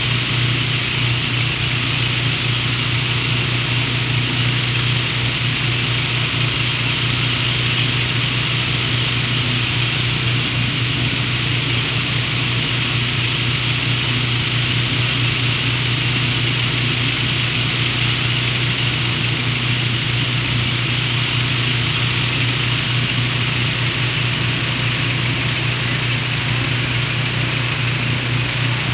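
Tractor engine running at a steady speed to drive a tank sprayer, a constant low hum with a steady hiss over it.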